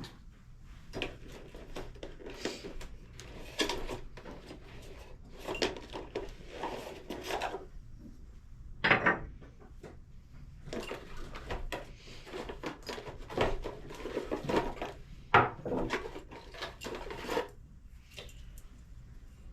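Irregular knocks, scrapes and clatter of household objects being handled, with a sharper knock about nine seconds in and another about fifteen seconds in.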